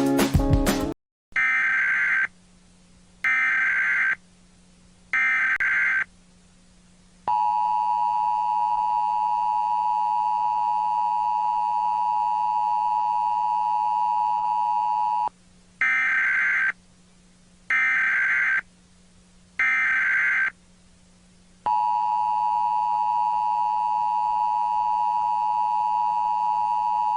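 Emergency Alert System broadcast tones cut into music about a second in. First come three short, harsh digital data bursts of the SAME header. Then the steady two-tone attention signal sounds for about eight seconds, followed by three more header bursts and the attention signal again, still sounding at the end.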